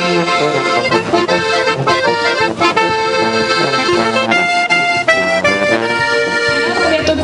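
Traditional folk music played live by a small band: a diatonic button accordion and a clarinet playing a tune together.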